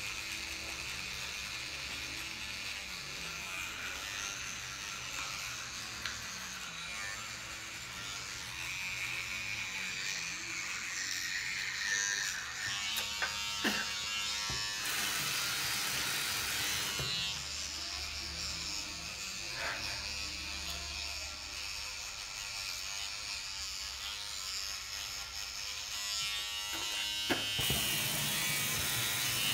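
Battery-powered electric toothbrush buzzing steadily while brushing teeth. There are short stretches of hiss about halfway through and again near the end.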